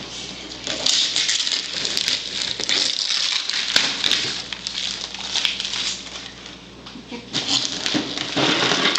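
Wrapping paper being ripped and crumpled by hand as a present is unwrapped: irregular rustling, crackling and tearing that comes in uneven bursts.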